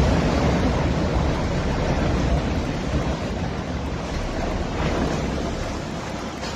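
Wind buffeting a phone microphone: a steady, gusting rush of noise heavy in the low end.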